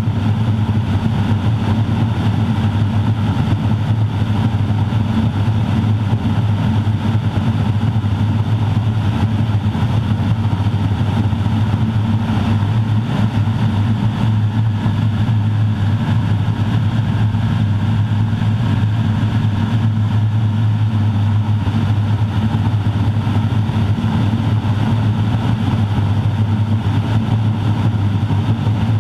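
Cockpit noise of a Grumman Ag Cat's Garrett TPE331-6 turboprop engine and propeller running steadily in flight, a loud constant drone with a strong low hum. The airframe gives off a resonance that is uncomfortable to the ear.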